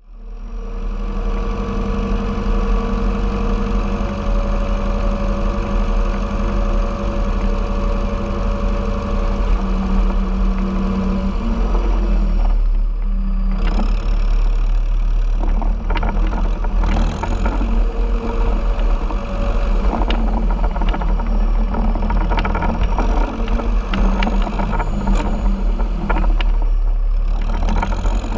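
John Deere 6110 tractor's four-cylinder turbo diesel engine running steadily under load while pulling a rotary tedder, with a thin turbo whistle rising and falling. A rattle of clicks and knocks joins from about halfway through.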